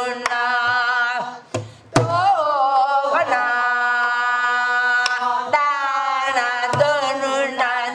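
A woman singing Korean gueum, long held vocal syllables with a wavering pitch, over a gutgeori rhythm beaten with a stick on a buk barrel drum; the drum strokes fall every second or so, the loudest a deep thud about two seconds in.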